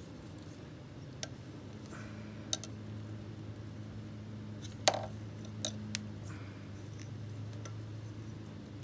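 Small sharp clicks and ticks as bare copper wire ends are handled and twisted together by hand, a handful in all, the loudest about five seconds in. A steady low hum runs underneath.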